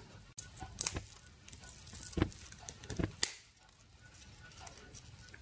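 A handful of sharp clicks and small crackles of small side cutters snipping and breaking apart a nixie tube's internal wires, mesh anode and insulators.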